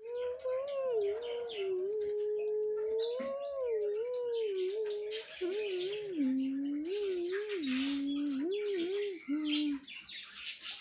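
Many small cage birds chirping busily together. Beneath them runs a continuous low tone that wavers up and down in pitch.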